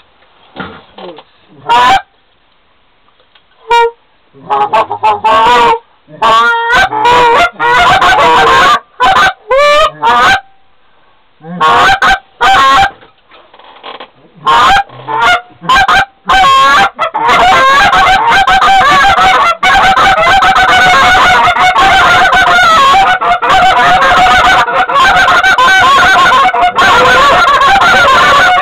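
Loud goose honking: scattered honks at first, then nearly continuous honking through the last third.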